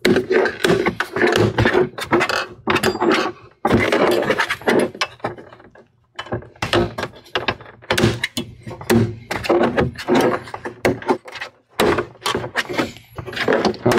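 Plastic back cover of a Dell Inspiron 7700 all-in-one being pried and pulled off: many short clicks, snaps and scrapes as its clips release, with a couple of brief pauses.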